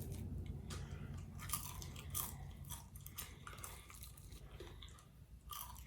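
Crispy fried chicken leg being bitten and chewed, its breaded crust crunching in a run of irregular crackles.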